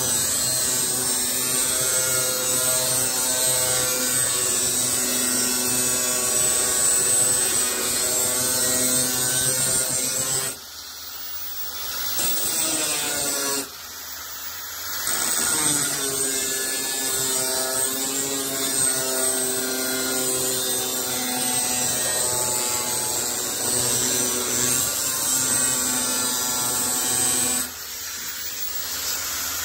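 Electric angle grinder cutting a steel sheet, a steady high whine with the hiss of the disc biting the metal. The cutting sound drops away and comes back twice about a third and halfway in, and falls off again near the end.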